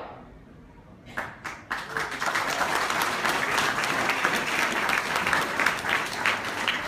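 Audience applause: after about a second of quiet, a few scattered claps start and swell into steady clapping.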